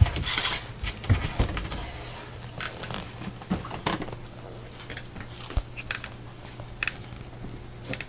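Newspaper crinkling and rustling in short, scattered crackles, with a few light knocks, as a Burmese python coils around and constricts a kicking rabbit.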